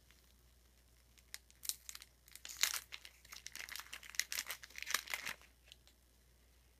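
The wrapper of a 1992-93 Topps basketball card pack crinkling and tearing as it is pulled open by hand. It comes in a string of short crackles over about four seconds, then stops.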